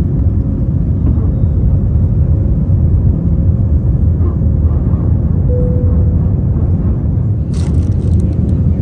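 Airbus A320-family airliner's engines and airflow heard from inside the cabin: a loud, steady low rumble, with a brief rattle near the end.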